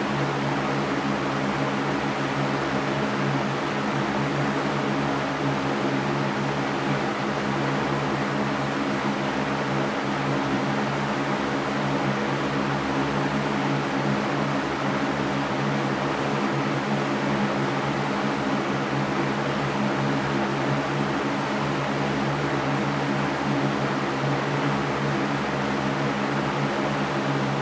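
Electric fan running steadily: an even rush of moving air over a low motor hum that holds a constant level.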